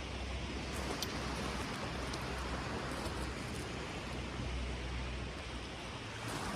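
Wind buffeting the microphone with a fluctuating low rumble, over a steady hiss of surf on an open beach.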